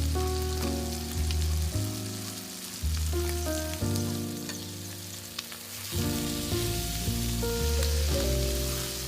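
Food sizzling as it fries, a fine crackle under background music with a strong bass.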